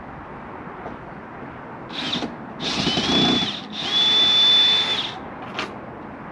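Power drill backing out the screws that hold a slide-out awning rail: three runs of the motor, a short one about two seconds in and then two longer ones of about a second each, the whine rising briefly and then holding one steady pitch. A single click follows near the end.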